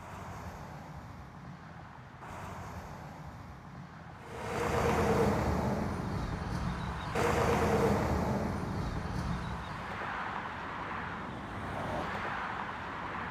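Road traffic: cars passing on a road alongside, with tyre noise. Two louder cars swell past about four and a half and seven seconds in, each fading over a second or two.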